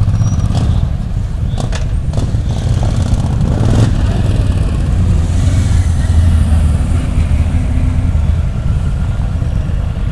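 Several cruiser motorcycles running and pulling away slowly one after another, a loud, steady, deep engine rumble.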